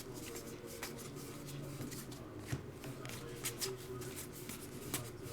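Topps Heritage baseball trading cards being flipped through by hand: a quick, irregular run of light flicks and slides of card stock, several a second.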